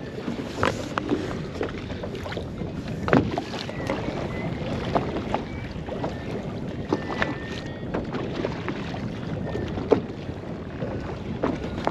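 Wind buffeting the microphone and water sloshing against a drifting boat's hull, with scattered, irregular knocks and clicks from the rod and reel during the fight with a heavy fish.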